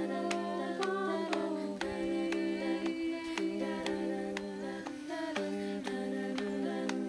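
A small vocal jazz group singing held chords in close harmony, a cappella, the chord changing every second or so, with a sharp click keeping time about twice a second.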